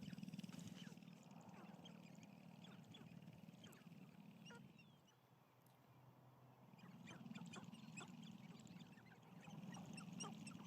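Sharp-tailed grouse dancing: a faint, low, rapid drumming of stamping feet, about twenty beats a second, with scattered short cooing and clucking calls over it. It dies away for about a second around the middle, then resumes.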